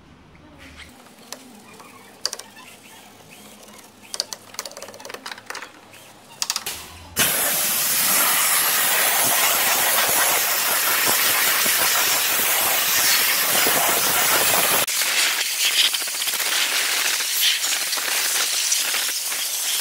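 Faint scratching of a bristle detailing brush scrubbing cleaner into the engine bay, then about seven seconds in a steam cleaner's wand opens with a sudden, loud, steady hiss as the steam jet blasts the engine bay.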